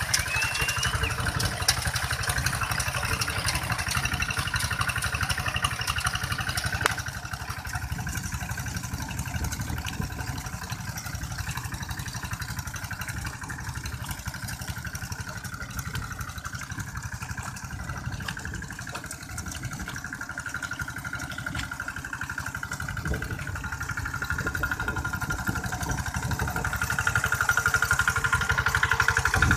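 Single-cylinder diesel engine of a two-wheel walking tractor running steadily under load while its cage wheels plow a flooded rice paddy. It grows fainter about seven seconds in as the tractor works farther off, and louder again near the end as it comes close.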